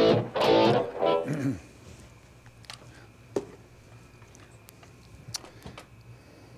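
Guitar played through an amplifier: a few short chords, the last one sliding down in pitch as it fades out about a second and a half in. Then only a low amplifier hum and a few faint clicks.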